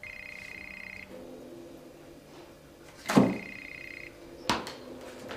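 Telephone ringing with a high electronic trill, two rings about a second long each, the second starting about three seconds in. A loud thump lands just as the second ring begins, and a sharper click follows about a second later.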